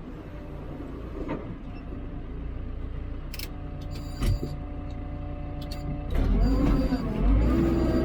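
Diesel engine of a Hidromek 102B backhoe loader running, picking up and working harder from about six seconds in, with a few sharp clicks and a thump near the middle.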